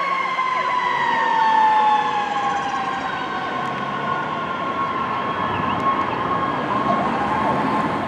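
Sirens of fire apparatus on an emergency response, several at once. One siren tone slides slowly down in pitch over the first few seconds while another holds steady for the rest.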